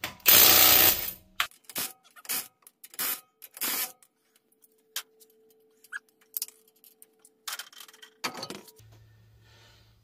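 Cordless impact wrench hammering a wheel's lug nut loose for about a second at the start, then a string of short metallic clinks as the loosened lug nuts are handled and spun off, and a thump near the end as the wheel comes off the hub.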